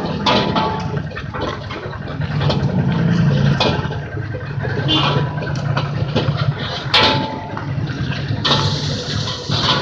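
Busy street-food stall: a steady hiss and low hum with frequent sharp metallic clinks and knocks from cooking at the stall's wok.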